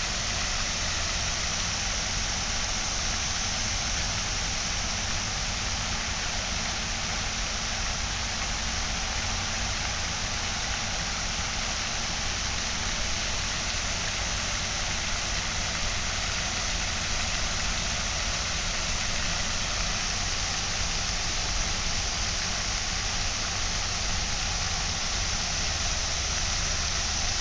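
Pond spray fountain running, its water falling back onto the pond in a steady, even splashing hiss, with a steady low rumble underneath.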